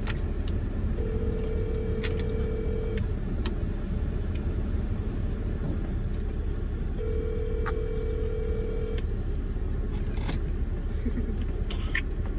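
Telephone ringback tone playing through a phone's speaker: two long, steady rings about four seconds apart, the called phone ringing and not yet answered. Under it, the steady low rumble of the car's interior.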